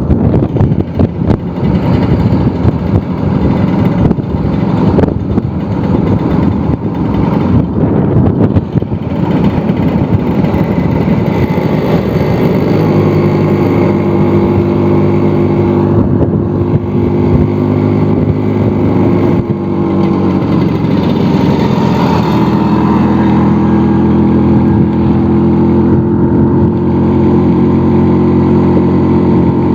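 Old two-stroke Vespa scooter engine running steadily while being ridden. Wind buffets the microphone through the first third. The engine note shifts about two-thirds of the way in.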